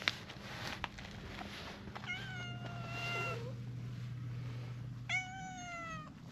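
Stray cats meowing: two long meows, the first about two seconds in and lasting over a second, the second near the end falling slightly in pitch. A low steady hum runs underneath.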